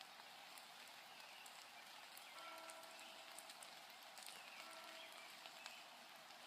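Near silence: a faint steady hiss, with a few faint short tones about halfway through.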